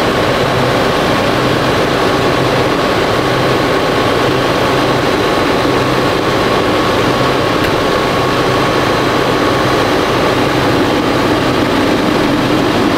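Fendt 939 Vario tractor's diesel engine running steadily with an even hum.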